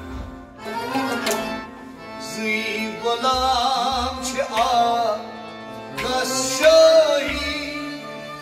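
Kashmiri Sufi song: a male singer's voice wavering over sustained melodic accompaniment, with tabla strokes around it.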